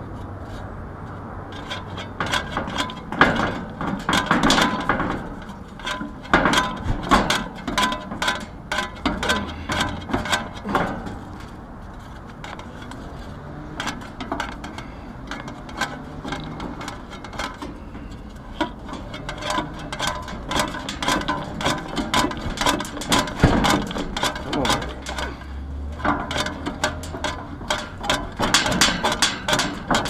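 Condenser fan blade's metal hub knocking and clicking on the motor shaft as it is twisted and rocked by hand to free it from the shaft after penetrating lube was sprayed on. The irregular clatter goes on throughout, with quieter spells in the middle.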